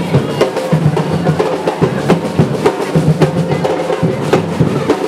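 Drums beating a steady rhythm of sharp strikes.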